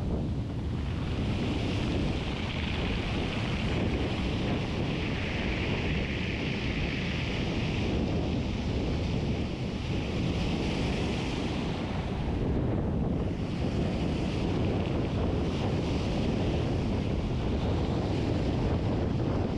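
Strong wind buffeting the microphone, a steady low rumble, over waves breaking and washing up the beach. A higher hiss of surf wash swells and fades several times.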